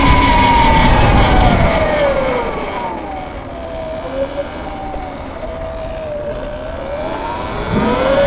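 Sur-Ron electric dirt bike's motor whine falling in pitch as the bike slows over the first few seconds, holding low, then rising sharply near the end as it accelerates again, over a low rumble that eases as it slows.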